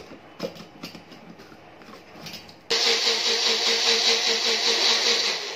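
Light knocks and clicks as the blade lid is screwed on and the jar is fitted to a personal bullet blender, then a little under three seconds in the blender's motor starts abruptly and runs at a steady whir, blending chopped amla with water, until it cuts off near the end.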